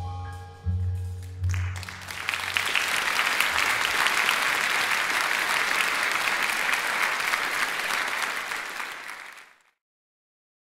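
Double bass plays the last few low notes of a jazz tune, with piano notes above them, then the audience breaks into applause. The applause cuts off suddenly near the end.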